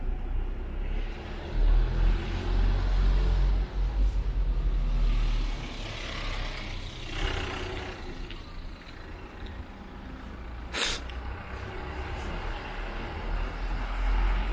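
Road traffic passing on a city street, a heavy low rumble of engines and tyres, with a vehicle swelling past in the middle. About eleven seconds in comes one short, sharp hiss.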